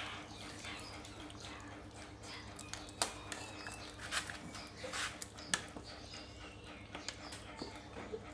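A metal ladle scooping soup in a steel pot, clinking sharply against the pot several times, the loudest about three and five and a half seconds in. Short animal calls sound in the background.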